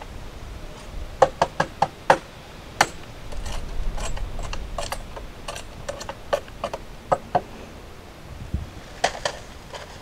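A paper bag of dry concrete mix being emptied into a wooden board form: sharp knocks and clicks of the bag and stones against the boards, a quick run of them about a second in, and a low rushing pour in the middle.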